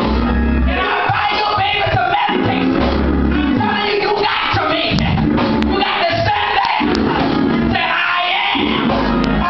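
Live gospel music in church with a woman's voice singing into a microphone over a PA, a heavy bass line running beneath.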